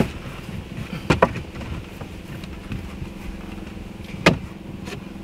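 Sharp wooden knocks from a scrap-plywood shelf being set and tested in the back of an SUV: one at the start, a quick pair about a second in, and one more near the end, over a steady low hum.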